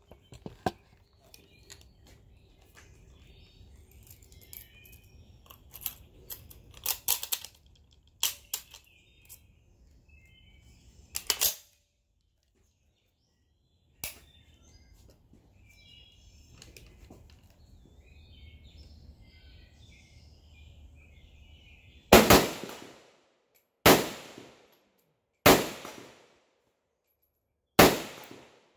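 Four rifle shots from an SKS semi-automatic rifle in 7.62×39mm, spaced about two seconds apart in the last quarter, each followed by a short echo. Before them, scattered sharp clicks and knocks.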